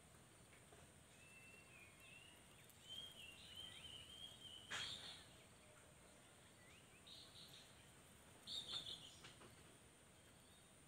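Faint outdoor ambience with a bird calling: a wavering whistled phrase for a few seconds, then two short runs of chirps later on. A single sharp click about five seconds in.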